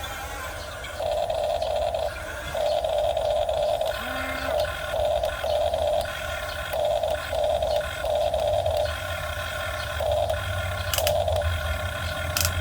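Miniature RC excavator's electric motors whining in repeated short spurts, starting and stopping as the controls are worked, over a steady low hum.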